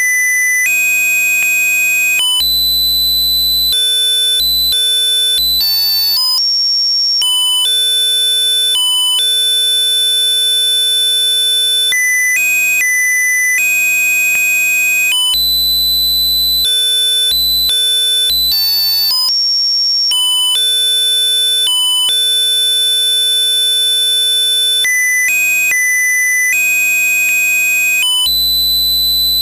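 Loud electronic tune played by the Abraxas2 DOS virus through a PC speaker: harsh beeping square-wave notes stepping from pitch to pitch, the melody repeating as a loop.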